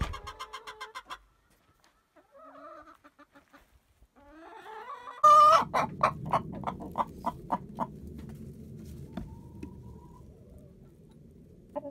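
Hen clucking in a straw nesting box: a few soft, low calls, then from about five seconds in a quick run of loud clucks, about three a second, over a low rustling rumble. This is the egg song of a hen that has just laid.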